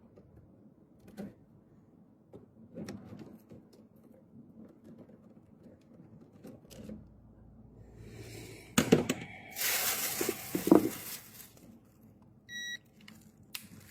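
Faint handling clicks, a loud rustling scrape with a few knocks about two-thirds of the way through, then a short electronic beep from a digital clamp meter near the end.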